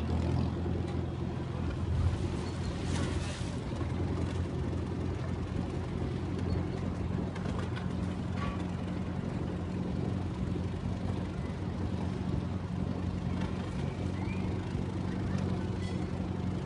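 Motor boat engine idling steadily with a low, even hum.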